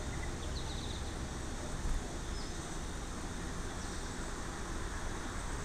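Outdoor background at a bird feeder: a steady low rumble and hiss, with a few faint, high bird chirps, including a quick run of chirps about half a second in.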